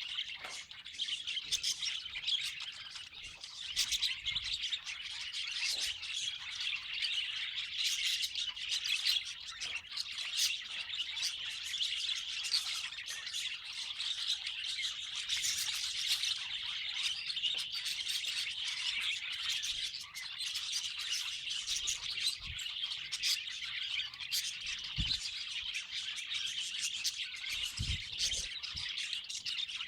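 Budgerigars chattering and chirping continuously in a dense warbling stream, with a few short low thumps in the last third.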